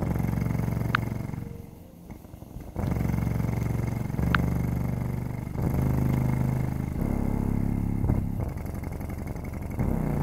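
10-inch Jensen XS car subwoofer, powered by a JBL Xtreme Bluetooth speaker in its low-frequency mode, playing the deep sustained bass notes of a bass test track, the cone moving hard. The bass changes pitch every second or two and dips briefly about two seconds in.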